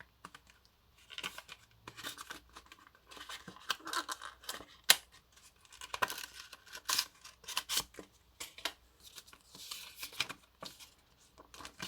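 Paper quick start guide being handled and unfolded: irregular rustling and crinkling with sharp snaps of paper, the sharpest about five seconds in.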